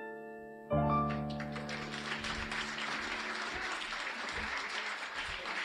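The closing chord of a song on electric piano, struck about a second in with a deep bass note and left to ring out, as audience applause builds and carries on.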